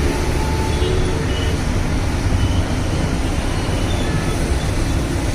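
Steady road-traffic rumble from a busy highway, a continuous low roar of passing vehicles without distinct events.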